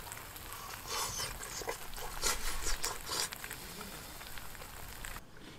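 Potatoes, cheese and shrimp sizzling in a small pan over the fire, with a cluster of crackles and light clicks about one to three seconds in. The sizzle cuts off abruptly near the end.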